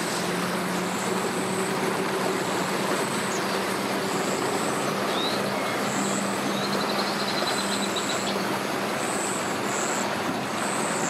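Sea-Doo GTX personal watercraft engine running steadily at slow speed as the craft pulls away, a constant hum with an even pitch.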